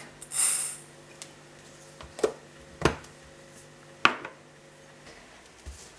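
Dry baker's yeast granules sliding off a metal spoon into a stainless steel bowl with a short hiss, followed by three light metallic clinks of the spoon against metal, over a faint steady hum.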